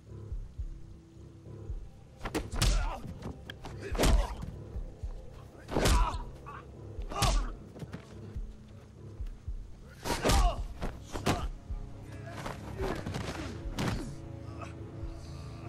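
Film fight-scene impact sound effects: about eight heavy punch, kick and body-fall hits, a second or two apart, over a low background music score.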